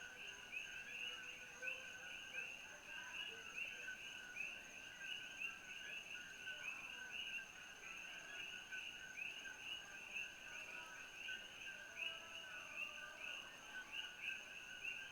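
Chorus of coqui frogs calling at night, many overlapping short two-note calls repeating several times a second, with a thin steady high tone beneath.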